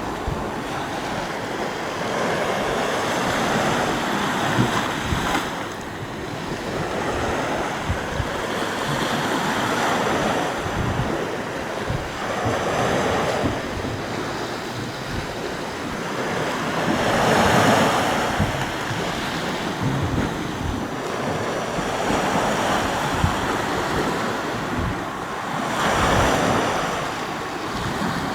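Sea waves surging and washing, swelling and fading every few seconds, with wind buffeting the microphone in low thumps.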